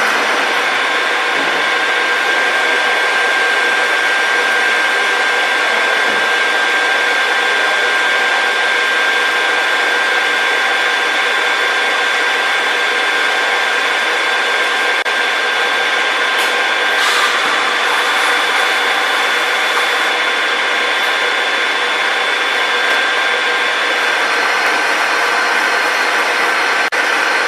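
KNUTH R50 radial drilling machine running: a steady whine from its spindle motor and gear head, with several high tones held throughout. About two-thirds of the way in there is a brief harsher burst, and near the end one high tone drops out.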